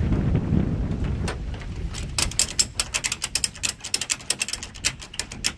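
A low rumble, then from about two seconds in a rapid, uneven run of sharp mechanical clicks, several a second.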